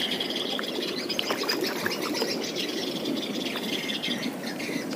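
Birds chirping and twittering continuously, over a steady low rush of running water.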